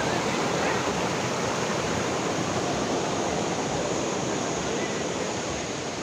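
Steady rush of falling water from the Ouzoud waterfalls, an even noise with no breaks that eases slightly near the end.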